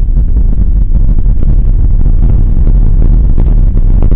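Mountain bike rolling fast over a wet gravel road, heard through a camera mounted at the front wheel: a loud, steady low rumble of wind and vibration on the microphone, with the crunch of the knobby tyre on gravel and irregular clattering knocks from the bike.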